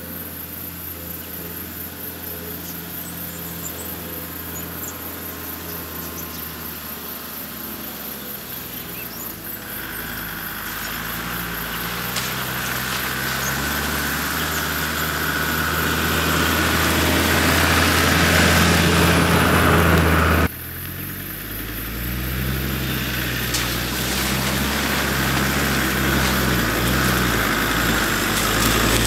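Land Rover Discovery 2 four-wheel drive crawling along a dirt track, its engine running at low revs and growing louder as it approaches. The sound drops suddenly about twenty seconds in, then builds again as the vehicle comes close.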